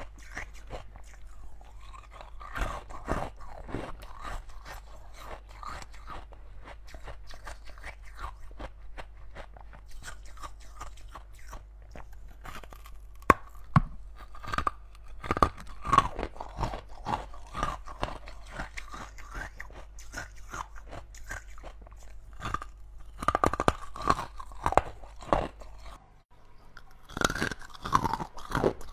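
Ice cubes being bitten and chewed close to the microphone: repeated sharp crunches and chewing, in loud clusters with quieter chewing between.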